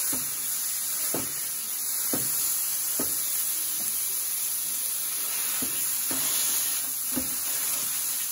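Ground beef sizzling on a Blackstone 17-inch E-Series electric griddle, with a steady frying hiss. A wooden spoon knocks and scrapes on the griddle top about once a second as it breaks up the meat.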